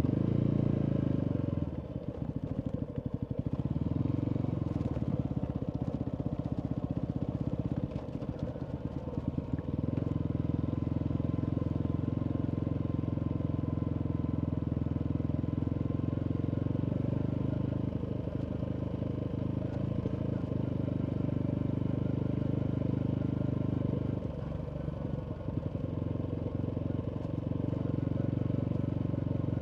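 Single-cylinder engine of a 2019 Yamaha MT125 running through a full Akrapovic exhaust while riding, a steady low drone. It turns choppy twice in the first ten seconds and dips briefly later on.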